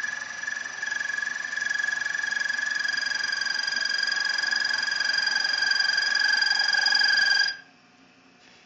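Milling cutter cutting a 1-inch oil hole through a soft-metal VW super diff housing: a steady high-pitched whine with several overtones that cuts off suddenly about seven and a half seconds in.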